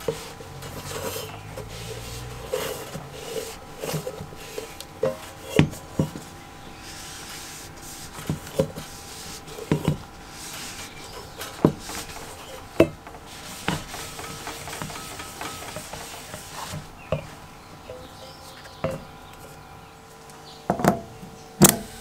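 Cloth rag rubbing and scrubbing over the brass fuel tank of an old kerosene pressure stove, with light knocks as the tank is turned in the hand and set against the rubber mat. Near the end, a couple of sharp clicks as an air-hose quick coupler is snapped onto its fitting.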